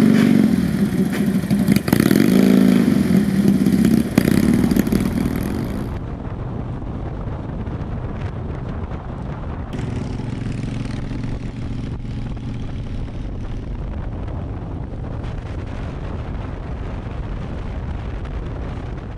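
Antique motorcycle engine revving up and down as the bike pulls away, with one sharp clack about four seconds in. About six seconds in it gives way to steady road noise on a wet highway, heard from inside a car.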